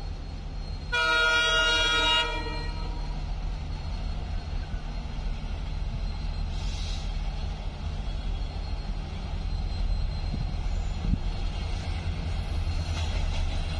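A WDP4D diesel locomotive's horn sounds one blast of just over a second, about a second in. After it comes the low, steady rumble of the approaching train, growing slightly louder near the end.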